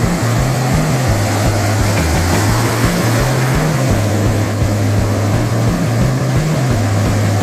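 Background music with a loud, steady bass line that steps between a few low notes.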